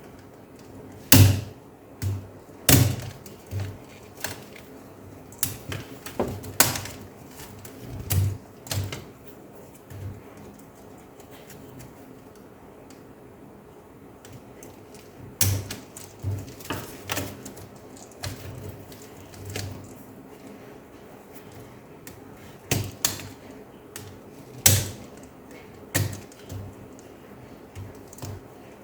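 Sharp plastic clicks and snaps, irregular and in clusters, as the Asus X541UA laptop keyboard's retaining latches are released and the keyboard is pressed out of its frame. A run of clicks in the first ten seconds, a pause, then more from about fifteen seconds in.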